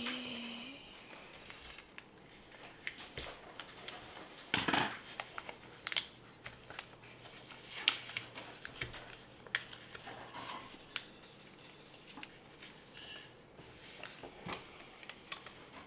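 Small hand scissors snipping through a sheet of paper in separate, scattered snips, then paper being handled and creased as it is folded.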